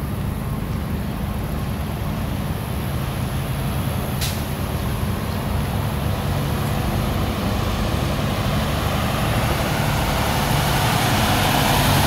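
Freightliner semi-truck's diesel engine running as the rig pulls slowly toward the listener, a steady low drone that grows louder. A brief sharp click about four seconds in.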